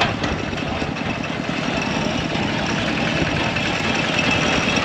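A motor vehicle's engine running close by, steady with a fast low pulsing, slowly growing a little louder.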